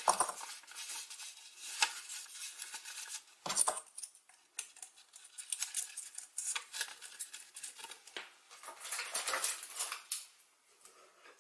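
Handling noise: paper rustling, with light clicks and scrapes as cross-shaped foam board pieces are fitted onto a paper-wrapped wooden skewer, and one sharper knock about three and a half seconds in.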